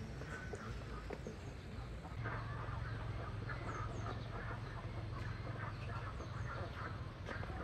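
Chickens clucking, with short calls repeating several times a second from about two seconds in, a few faint high chirps, and a low steady hum underneath.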